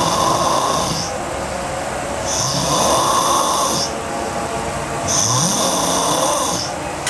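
A sleeping woman snoring heavily: a rough snore about every two and a half seconds, three of them here, the first already under way as it begins.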